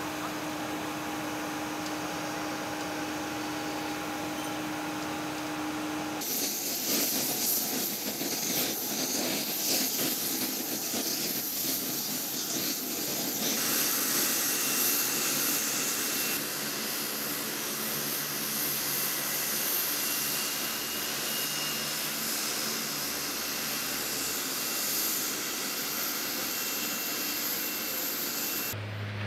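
The twin turboprop engines of a C-27J Spartan running on the ground: a loud, steady rush and hiss, with a thin high whine from about halfway. For the first six seconds there is only a quieter steady hum.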